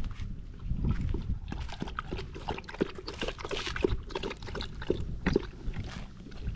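Belgian Shepherd dog lapping water from a galvanized metal bucket: a run of short, wet laps and splashes, repeating again and again.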